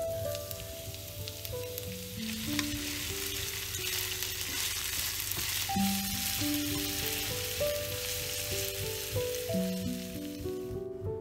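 Sliced onions sizzling in hot oil in a nonstick frying pan, stirred with a wooden spatula; the sizzle stops shortly before the end.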